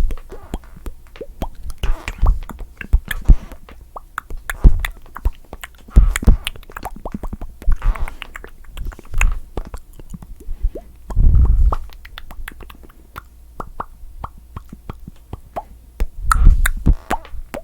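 Mouth popping sounds made close to a microphone: a quick, irregular run of wet clicks and pops from the lips, tongue and cheeks, with a few louder, deeper pops.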